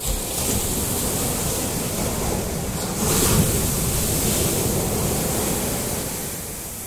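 Sea surf breaking on the beach: a wave crashes about three seconds in, and the wash eases off near the end.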